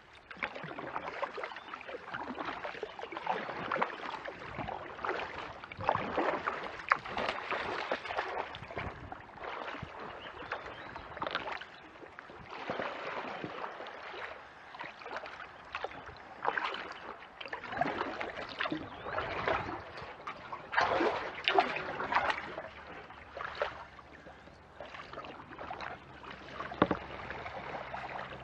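Kayak paddle strokes: the blades dipping and pulling through the water with splashes and dripping, in an uneven rhythm of about one stroke every one to two seconds.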